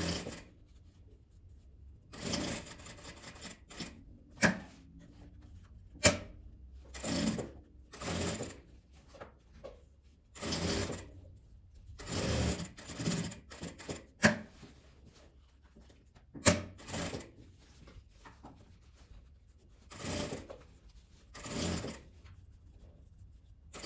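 Sewing machine stitching in short runs of under a second, stopping and starting about a dozen times while bias binding is guided along a fabric edge. A few sharp clicks sound between the runs.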